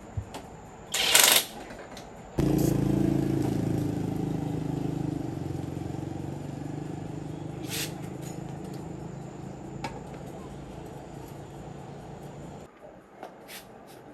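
A short loud hiss, then a machine's motor starts suddenly, runs steadily with a low hum that slowly weakens, and stops abruptly near the end, followed by a few light clicks.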